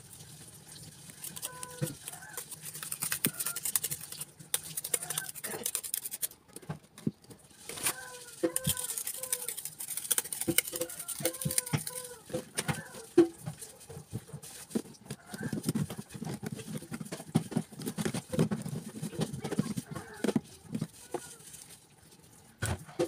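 Graham crackers and a plastic container being handled, with many short taps and clicks as crackers are laid in layers. Short pitched calls sound in the background.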